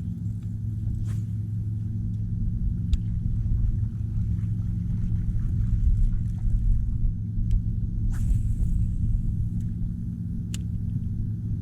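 Boat motor running steadily with a low rumbling hum, and a few sharp clicks over it.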